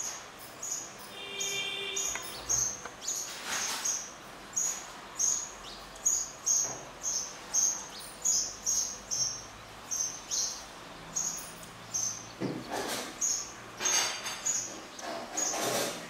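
Short high-pitched chirps repeating evenly, about two to three a second, with a few brief noisy swishes near the middle and toward the end.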